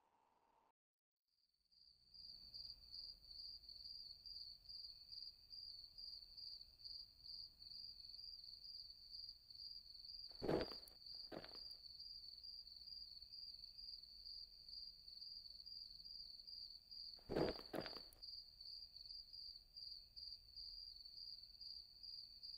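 Crickets chirping in a steady, pulsing night chorus, starting after a second or so of near silence. Twice, about halfway and about three-quarters in, a pair of short, louder noises cuts across it.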